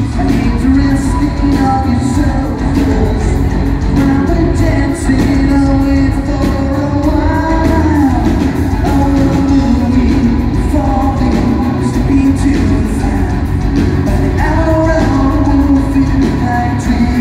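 Live rock band playing at full volume, with a male lead singer singing through the PA over steady drums and bass.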